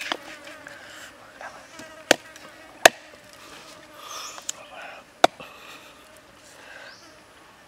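Large serrated knife chopping down through grilled pig leg onto a wooden chopping block: five sharp knocks spread over several seconds, the loudest about three seconds in.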